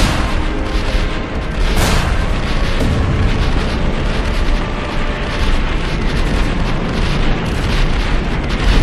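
Animated-film soundtrack: loud, dense rumbling sound effects over music, with a rushing whoosh about two seconds in.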